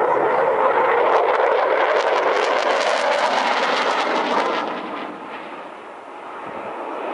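Eurofighter Typhoon's twin jet engines roaring loudly on a pass, with a rapid crackle from about two seconds in. The roar fades about five seconds in, then swells again near the end.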